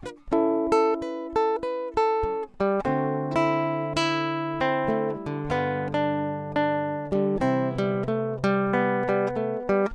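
Background music: acoustic guitar playing a steady run of plucked notes over held bass notes.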